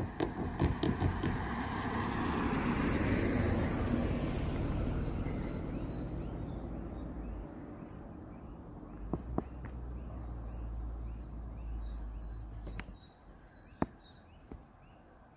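A car drives over the level crossing, its tyres knocking over the rails in the first second. Its road noise swells and then fades over the next few seconds. Birds chirp in the background near the end, with a few sharp ticks.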